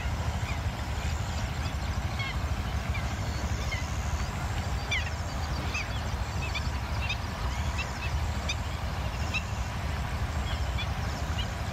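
Birds chirping: many short, quick high calls, several a second, over a steady low rumble.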